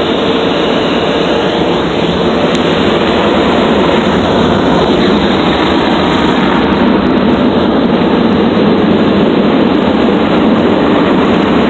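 Car wash tunnel dryer blowers running, a steady loud rush of air over the car, heard from inside the car.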